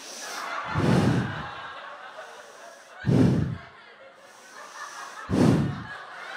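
Audience laughing after a punchline, with three heavy, deep thumps about two seconds apart standing out above the laughter.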